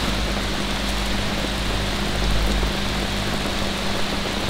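Steady rain, an even constant hiss, with a low steady hum underneath.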